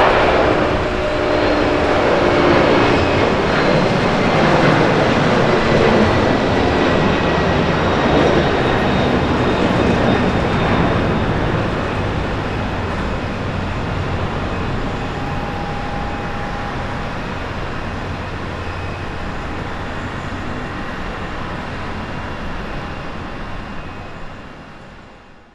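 Boeing 767 airliner's twin jet engines at takeoff thrust as it lifts off and climbs away: a loud, steady roar that slowly fades over the second half, cutting off at the very end.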